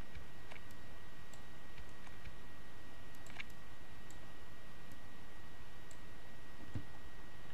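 A few scattered computer mouse clicks over steady hiss with a thin, constant high whine. The clearest click comes about halfway through, and a soft low thump comes near the end.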